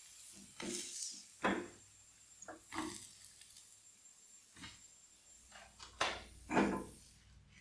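Slotted plastic spatula pressing and scraping a flour tortilla in a nonstick frying pan: a series of soft, irregular scrapes and taps, the loudest about one and a half seconds in and again near the end.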